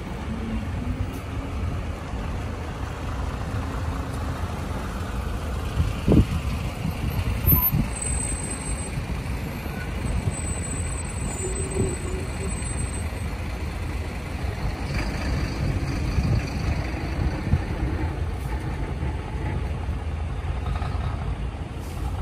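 Medium-duty diesel box trucks pulling away one after another, their engines running with a steady low rumble. A couple of sharp knocks come about a quarter of the way in.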